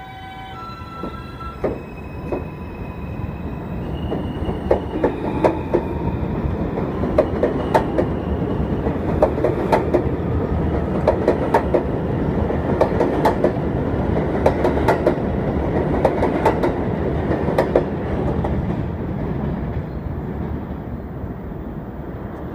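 New York City subway train pulling out of an elevated station. Its electric propulsion whine climbs in steps over the first few seconds, then the wheels clatter over the rail joints in a quick run of clicks, loudest in the middle as the cars go by and easing off near the end.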